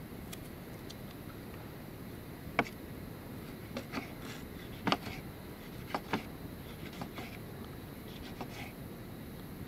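Knife chopping vegetables: about ten sharp, irregularly spaced cuts, some in quick pairs, over a steady low background hiss.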